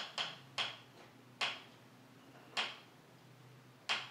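About six short, sharp clicks at uneven intervals, the first two close together, over a faint steady low hum.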